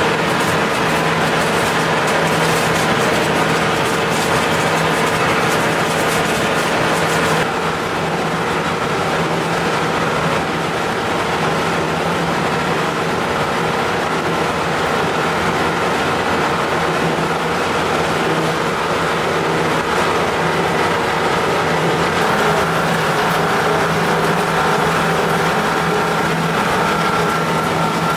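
Steady running of a shredding plant's conveyor and sorting machinery, motors humming and belts carrying shredded granules. The sound changes about seven seconds in, turning duller.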